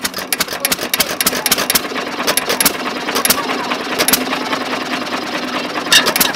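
Restored John Deere hit-and-miss engine running, a fast, steady clatter with louder knocks coming at uneven intervals.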